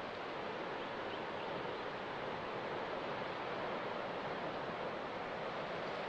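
Ocean surf: a steady, even rush of waves breaking on a shore.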